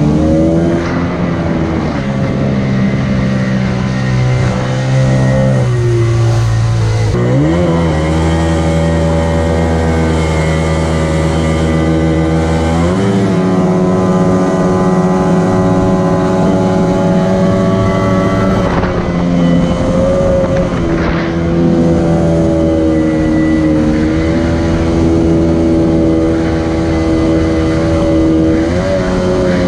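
Jet-drive outboard motor on an aluminium jon boat running under way, its engine note shifting with the throttle: it rises sharply about seven seconds in, steps again a few seconds later and climbs once more near the end.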